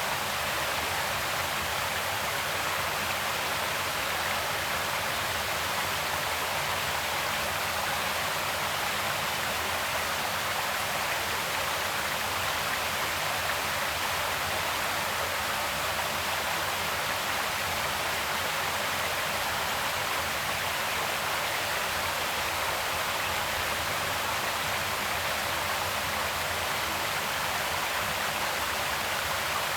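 Creek water flowing, a steady, even rush with no change.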